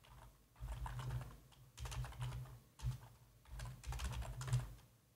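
Typing on a computer keyboard: quick runs of keystrokes in about four short bursts with brief pauses between them, fairly faint.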